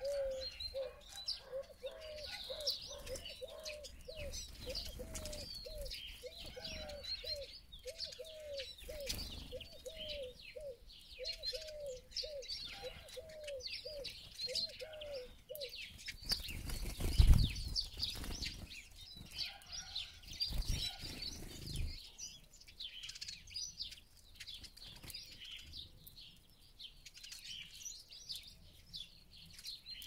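Small birds twittering and chirping high-pitched all through, over a low call repeated about one and a half times a second that stops about halfway through. Just past halfway comes a loud flurry of wingbeats as siskins fly up from the feeder, with two smaller ones a few seconds later.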